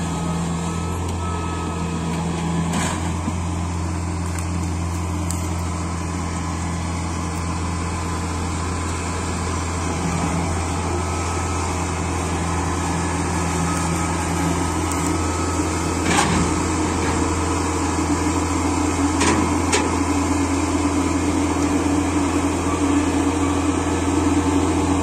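Kubota DC68G Harvesking crawler combine harvester's diesel engine running steadily under load as the machine climbs steel ramps onto a trailer. It grows louder in the second half, with a few sharp knocks.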